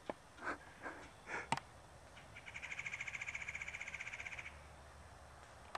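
A wild animal's call: a rapid, even trill of many quick pulses at one high pitch, lasting about two seconds from a couple of seconds in, with a few short calls just before it.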